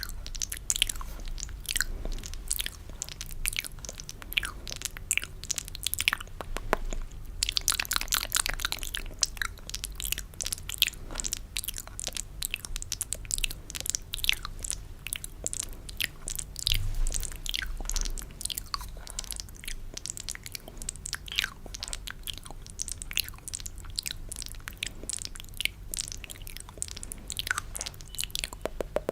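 Close-miked ASMR mouth sounds: rapid, irregular wet clicks and smacks of the lips and tongue, the 'spit painting' style of mouth sound.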